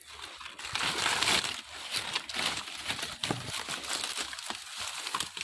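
Dry leaves and twigs rustling and crackling as a hand and body push through tangled mangrove undergrowth, irregular, with a few sharper snaps.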